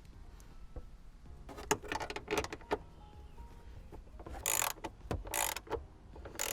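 Socket ratchet clicking in several short bursts as a fender bolt is run in.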